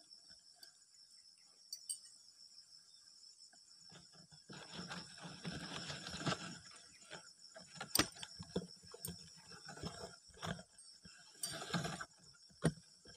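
Steady insect chorus of crickets or cicadas, high-pitched and continuous. From about four and a half seconds in it is joined by rustling and handling noise with several sharp clicks and knocks.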